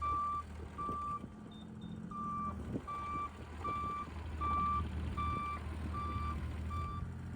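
Bobcat E35 mini excavator's travel alarm beeping steadily, roughly one beep every three-quarters of a second, with a short pause about a second in and stopping near the end, over the steady low running of its diesel engine. The alarm sounds while the tracks are driven.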